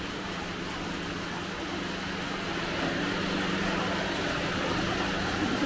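A steady low motor hum under general room noise, growing a little louder about three seconds in.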